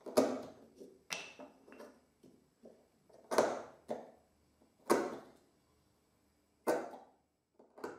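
Narrow chisel pressed by hand through a small plywood piece, chopping out the wood left between drilled holes: about six sharp cuts, irregularly spaced a second or two apart, with a few smaller ones between.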